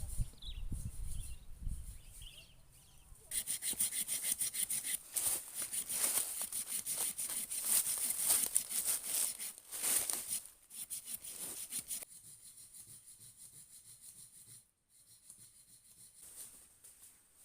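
Hand saw cutting through wood: quick, rhythmic back-and-forth strokes that start about three seconds in and stop about twelve seconds in.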